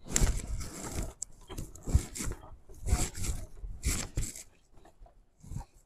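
Rustling, rubbing and dull bumps of a person shifting his body from a wheelchair onto a van seat, in several irregular bursts that die away after about four and a half seconds.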